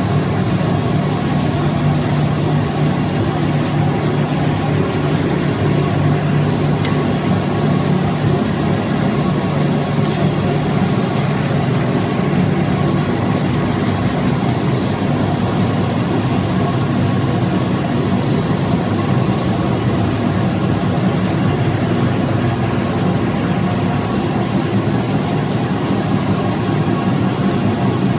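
Carpet-washing machinery running steadily, a loud, even low hum with a whirring noise over it.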